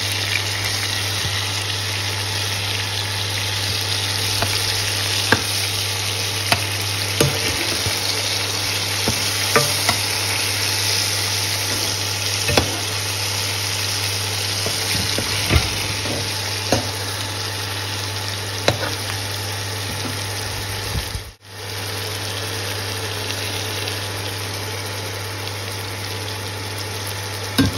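Marinated chicken drumsticks sizzling as they fry in hot oil, with scattered sharp ticks and spatters over a steady low hum. The sound drops out for a moment about three-quarters of the way through.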